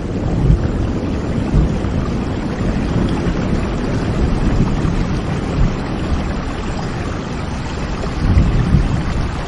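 Heavy rain falling steadily, with a low rumble of thunder underneath that swells briefly a few times.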